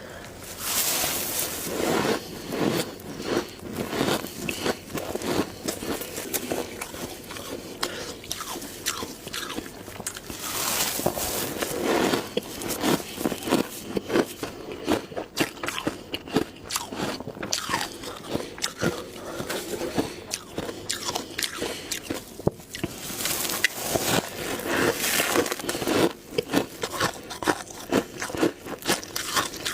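A person biting and chewing humidifier ice close to the microphone: rapid, crackly crunching throughout, coming in louder spells.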